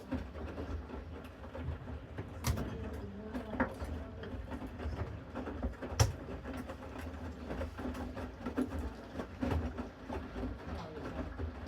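Bosch Series 6 washing machine in its main wash, the motor turning the drum with a steady low hum while the wet laundry tumbles. Occasional clicks and knocks come through, the sharpest about six seconds in.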